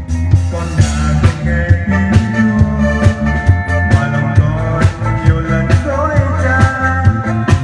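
Band music for a hymn: a drum kit keeping a steady beat under bass and melody instruments.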